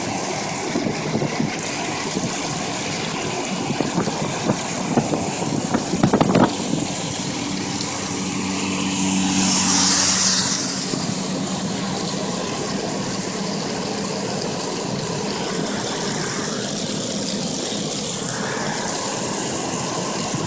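Moving car's steady road and wind noise, heard with the phone at the side window. A few knocks come about five to six seconds in, and a louder hiss swells and fades about nine to ten seconds in.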